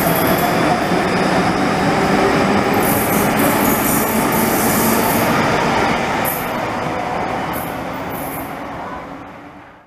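Light-rail tram moving off along the platform and passing close by: a loud rumble of steel wheels on rail with intermittent high-pitched wheel squeal, fading away from about six seconds in as it leaves.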